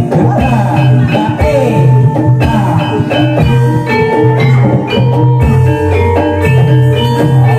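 Live Banyumasan gamelan playing ebeg music: struck keyed instruments ring out many notes over a sustained low tone, with pitch-bending hand-drum strokes.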